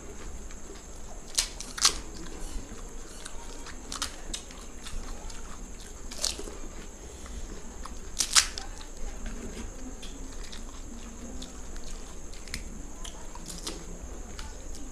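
Crisp fuchka (pani puri) shells cracking as they are broken open with the fingers and crunched while eating: a handful of sharp cracks a second or two apart, the loudest about two seconds and eight seconds in.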